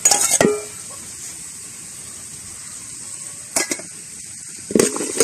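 Small shallots and green chillies frying in hot oil with a steady sizzle. A steel bowl and ladle clatter against the pan at the start, one stroke ringing briefly, and a ladle scrapes the pan again about three and a half and five seconds in.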